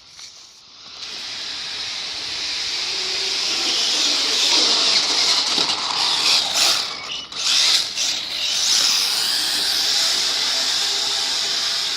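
A radio-controlled Mk2 Ford Escort model car running, a steady high hissing whir that builds up over the first few seconds. It dips briefly a couple of times in the middle.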